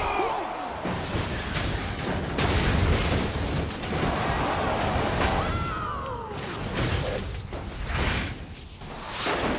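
Film sound effects of stock cars crashing: a run of heavy booms and crunching metal impacts over dense noise, with a couple of falling squeals.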